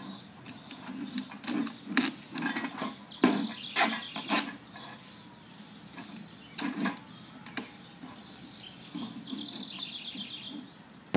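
Duct tape being pulled off the roll and wrapped around a pipe on a plastic bucket: a run of short ripping pulls between about one and a half and four and a half seconds in, and another pair near seven seconds.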